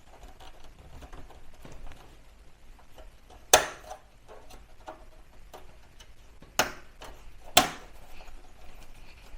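Plastic front panel of a small form factor desktop PC being fitted onto the metal chassis: light handling rustle and three sharp clicks as it snaps into place, the first about three and a half seconds in, then two close together near the end.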